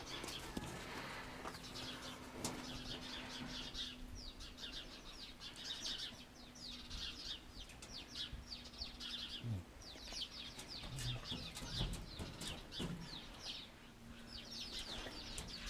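Small birds chirping and twittering faintly in quick runs of short, high, falling notes, over a faint steady low hum.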